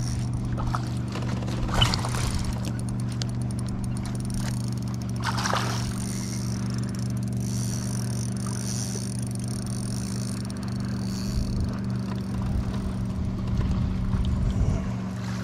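A steady low hum, like a small motor running, with a few short knocks or scrapes over it, the clearest about two seconds in and again around the middle.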